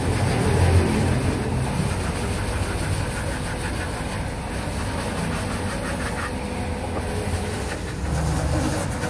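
A steady low mechanical rumble, like an engine or machine running.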